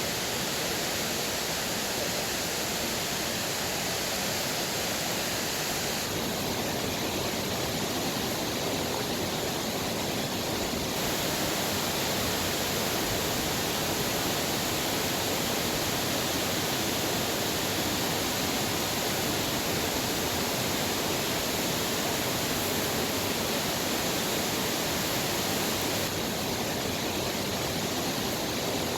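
Waterfall: a steady rush of falling water pouring and splashing without letup, its brightness shifting slightly a few times.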